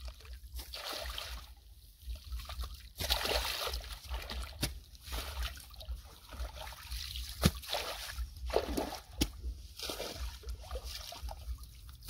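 Shallow muddy river water sloshing and trickling as someone wades knee-deep and scoops wet mud out of the bank by hand, with a few sharp knocks.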